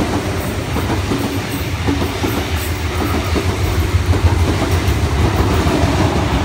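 Sydney Trains Tangara double-deck electric train passing through the platform at speed: a steady, loud rumble of wheels on rail with a rhythm of regular clicks.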